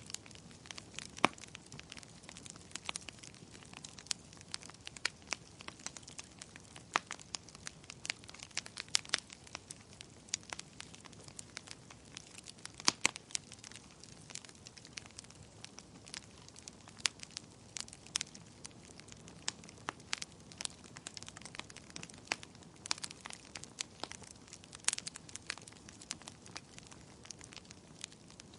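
Fire crackling: irregular sharp pops and snaps over a soft steady hiss.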